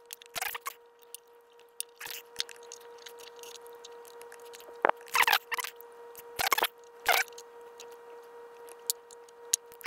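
Small bench vise set down and the shifter mechanism's metal parts handled and fitted into its jaws: scattered knocks and clicks over a faint steady hum.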